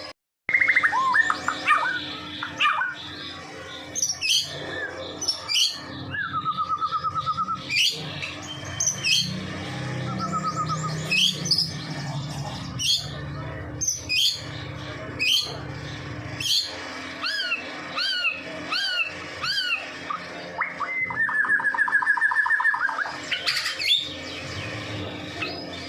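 White-rumped shama (murai batu, Medan type) singing continuously in full song: a varied string of loud whistled phrases, fast trills and repeated down-slurred notes, with a long rapid trill near the end.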